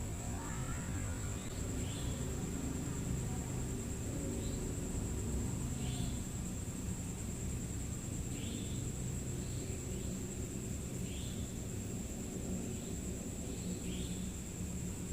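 Night ambience of insects: short high chirps every second or two over a steady high-pitched whine, with a low steady rumble underneath.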